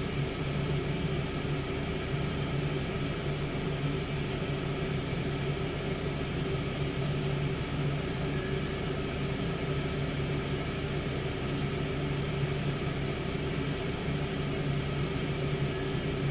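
Tower air fryer oven running: its fan gives a steady, unchanging hum.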